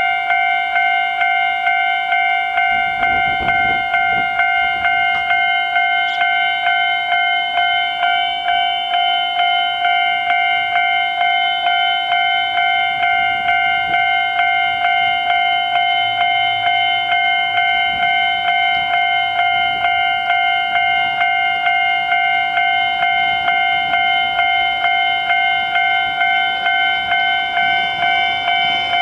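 Japanese railway level crossing alarm bell ringing steadily, repeating at about two strokes a second. This crossing starts ringing even when no train passes through it.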